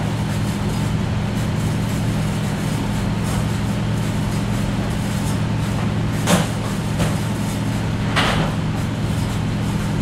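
Steady low electrical hum with a constant hiss, room or recording-equipment noise. Two brief rustles come about six and eight seconds in.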